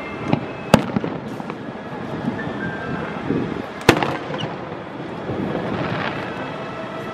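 Aerial fireworks shells bursting: two sharp, loud bangs, about a second in and about four seconds in, with a few smaller cracks between them.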